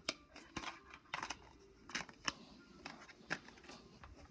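Plastic DVD case being handled, with a disc pressed onto its centre hub: a string of irregular sharp clicks and snaps.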